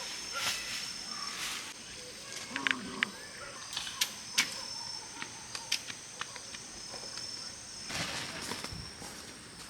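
Steady high-pitched insect trilling, with scattered sharp clicks and a few short rustles.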